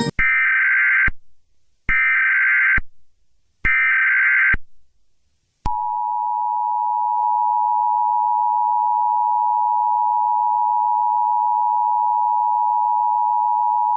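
Emergency Alert System tones: three short data bursts of the SAME header, each about a second long, then the two-tone attention signal held steady for about eight seconds, which announces the tornado warning that follows.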